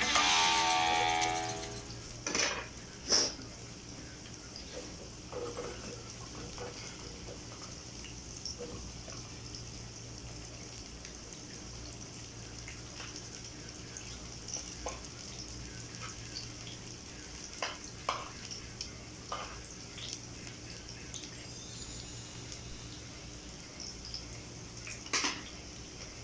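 Cabbage and egg omelette frying in oil in a pan, a steady sizzle, with a metal spatula now and then knocking and scraping against the pan. Music fades out in the first second or two.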